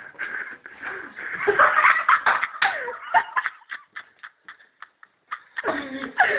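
Excited voices in short, loud bursts that break up and trail off about four seconds in, then start again near the end.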